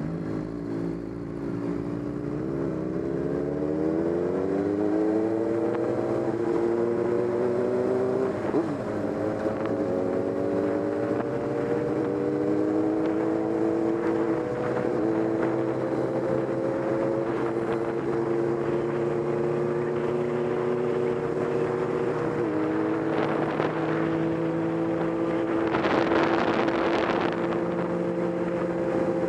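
Motorcycle engine accelerating, its pitch rising over the first few seconds, then running steadily at highway speed with three brief dips in pitch. Near the end a short burst of rushing hiss rises over it.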